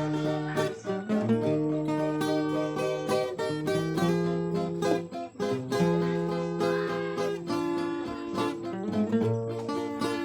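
Music led by plucked acoustic guitar, picked notes ringing over held bass notes.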